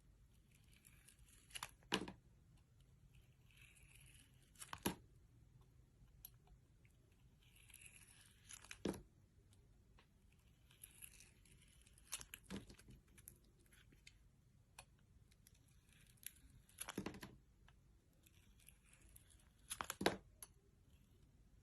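Crisp crunching and snapping of a brittle material being worked close to the microphone: about six sharp snaps a few seconds apart, with soft crinkling between.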